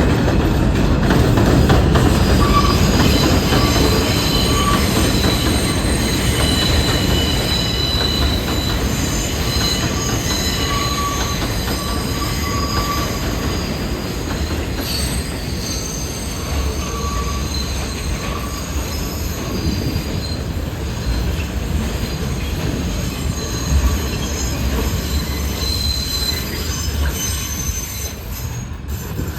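New York City subway train running through the station: a steady wheel-and-track rumble with high-pitched wheel squeal over it, slowly easing toward the end.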